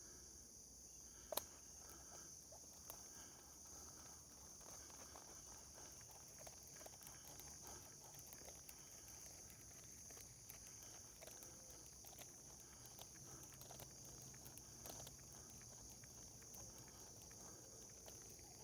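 Faint outdoor ambience: a steady, high-pitched insect chorus, such as crickets, runs throughout, with scattered small clicks and rustles and one sharper click about a second and a half in.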